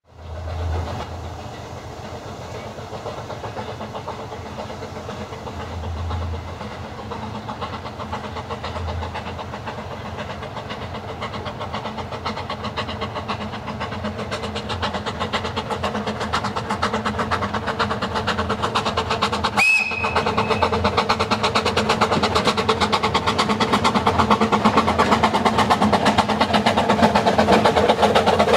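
Small Quarry Hunslet saddle-tank steam locomotive working along the line, its rapid exhaust beats growing steadily louder as it approaches. A brief high whistle note sounds about two-thirds of the way through.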